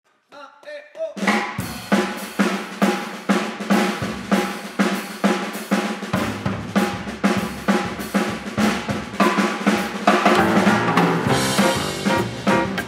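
Up-tempo swing jazz recording: a brief pitched lead-in, then a drum kit comes in about a second and a half in and keeps a steady beat of about two strokes a second under the band, growing fuller near the end.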